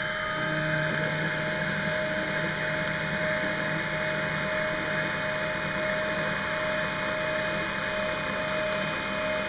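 Home-built X2 mini mill CNC conversion running a cutting cycle: the spindle turns an end mill through a plastic enclosure lid. The running is steady, with one constant tone over a hiss, and it keeps on without a break.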